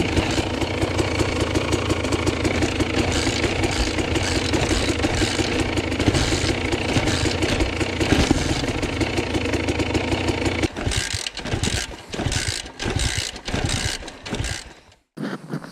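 Small single-cylinder dirt bike engine idling with a steady, pulsing beat. About eleven seconds in, the steady running gives way to choppy, broken-up sound.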